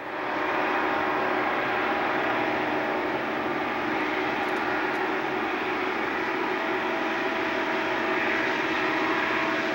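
Diesel locomotives of a freight train running, a steady heavy drone with whining tones through it, beginning abruptly and holding level throughout.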